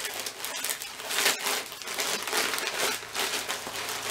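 Packaging crinkling and rustling in irregular bursts as a package is opened and handled by hand.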